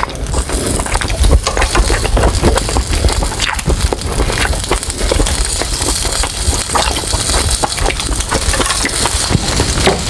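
Pork butt sizzling and crackling on a hot grill plate, with the crunch of kitchen scissors snipping through the grilled meat.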